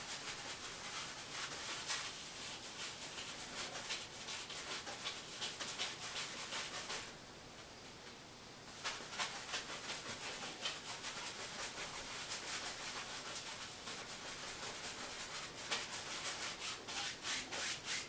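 A 2-inch brush loaded with white paint scrubbing over canvas in quick short X-strokes, a rapid scratchy rubbing that pauses for about two seconds midway, as mist is worked into the background.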